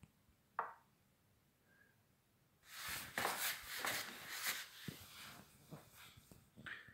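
Chess.com app's move sound: a short wooden knock about half a second in as the pawn move to h3 is made, and another short knock near the end. In between, about three seconds of louder hissing noise with irregular clicks.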